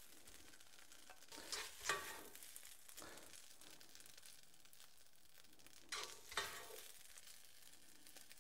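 Faint sizzling of fried rice in a stainless steel wok, with a spatula scraping and scooping rice out onto a plate, briefly about two seconds in and again about six seconds in.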